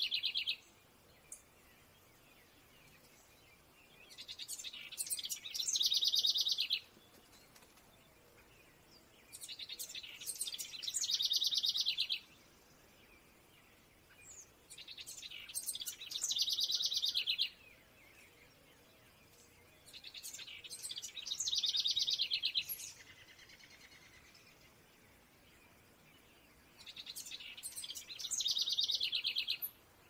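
A songbird singing the same phrase over and over, five times about five to six seconds apart. Each phrase is a run of quick, high, sharp notes that ends in a fast trill, with quiet between.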